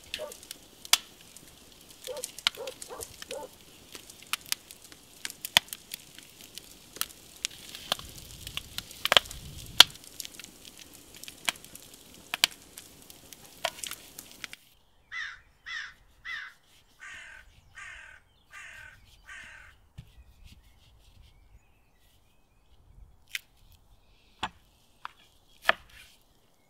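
Charcoal fire crackling and popping under vegetables charring on a grill grate. After a cut, a crow caws about eight times in a steady series, followed near the end by a few knife strokes on a wooden cutting board.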